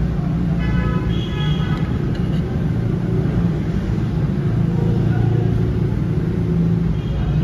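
A steady low mechanical rumble.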